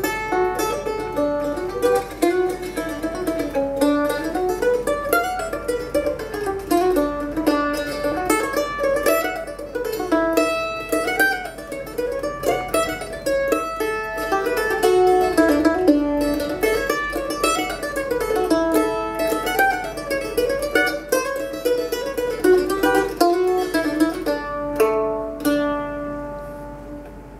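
Solo Eastman A-style mandolin, plucked in a quick melody of running single notes. It slows near the end into a few notes that ring and fade away.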